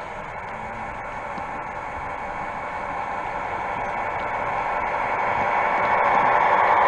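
Model diesel locomotive in the red livery of a Danish DSB MY-class NOHAB, running along the track toward the microphone with container wagons in tow: a steady hissing running noise that grows louder as it comes near.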